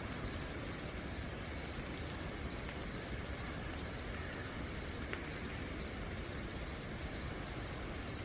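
Steady hiss of night rain with a cricket trilling on one high, even pitch throughout, and a single sharp tick about five seconds in.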